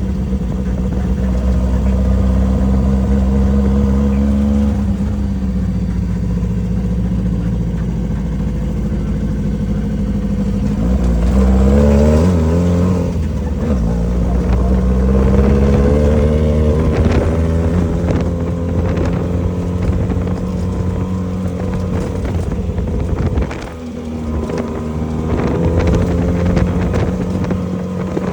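Off-road race vehicle's engine running hard, its pitch rising and falling with the throttle. Scattered knocks and rattles come through in the second half. The engine drops off briefly near the end, then picks up again.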